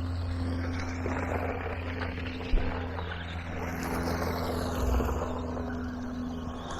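Haiboxing Protector electric RC car driving over rough ground, its motor whine and tyre and drivetrain noise rising and falling with the throttle, with one sharp knock about two and a half seconds in.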